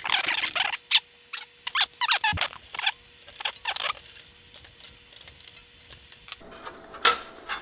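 Top cover of an HP 3300A function generator being slid off its chassis by hand: a quick run of scrapes, squeaks and clicks from the cover rubbing in its frame, busiest in the first four seconds and then sparser handling noises.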